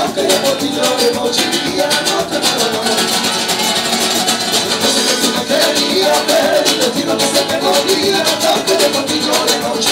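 Live flamenco-style band playing: a strummed acoustic guitar over a cajón and shaker-like percussion keeping a steady beat.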